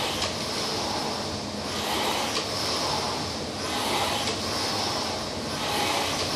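Concept2 rowing machine's air-resistance fan flywheel whirring, the whoosh swelling with each drive and easing on the recovery about every two seconds, with a light click now and then. The owner holds that the flywheel and spiral damper are loose, so the machine gives too little resistance.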